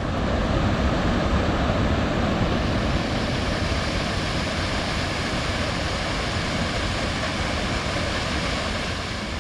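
Waterfall rushing loudly and steadily, a constant roar of falling water with no break.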